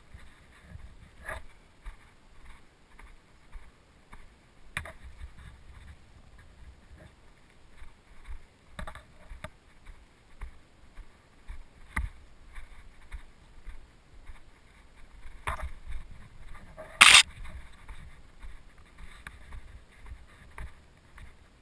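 Rustling and low rumbling from someone moving about, with a scattered knock every few seconds and one loud, sharp crack about seventeen seconds in.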